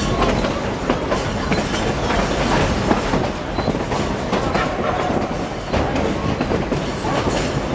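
Durango and Silverton narrow-gauge train running along the track, heard from an open passenger car: a steady rumble of wheels on rails with a rapid, irregular clatter of clicks and rattles.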